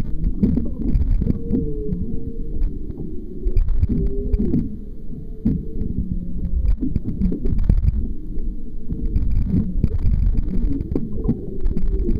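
Humpback whale song heard underwater: drawn-out calls that slide up and down in pitch, several overlapping, over a steady low rumble of water on the submerged microphone.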